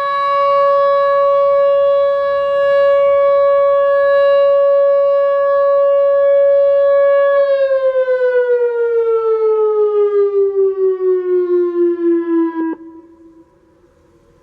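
Whelen WPS 2908 electronic outdoor warning siren sounding a steady tone during a test. About seven seconds in it winds down, the pitch falling and the loudness wavering, then cuts off about 13 seconds in.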